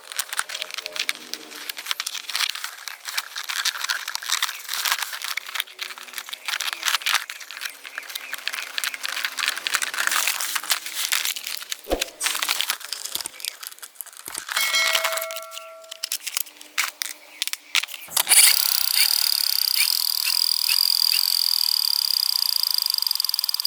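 Rustling, crinkling handling noise with many small clicks, and a sharp knock about twelve seconds in; a few brief tones sound around fifteen seconds, and for the last five seconds a steady hiss with a high whine takes over.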